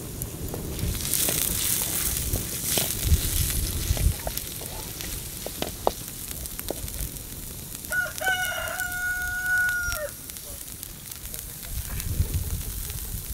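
Chicken pieces sizzling in a steel wok over a wood fire, with light knocks and scrapes of a wooden spatula stirring them. About eight seconds in, a rooster crows once, a call lasting about two seconds.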